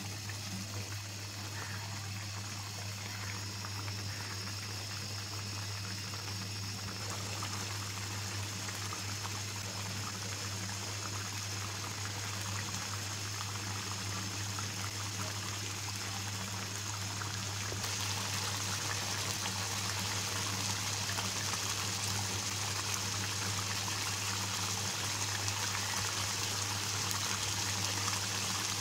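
Chicken curry gravy boiling hard in an open pan, a steady bubbling hiss that grows louder about two-thirds of the way through as the sauce reduces down, with a steady low hum underneath.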